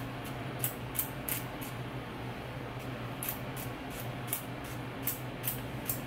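Trigger spray bottle of leave-in conditioner misting onto hair in quick, short sprays, about three a second: a run of five, a pause of about a second and a half, then a run of about eight.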